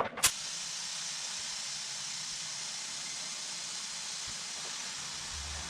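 Steady hiss of compressed air, beginning abruptly just after a click and holding at an even level, the sound of air being fed into a tractor tire.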